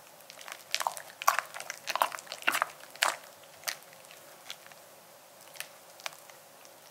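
Silicone spatula folding and scraping thick, sticky sweet potato cheesecake batter in a glass bowl: irregular sticky smacks and scrapes, busiest in the first three seconds, then sparser.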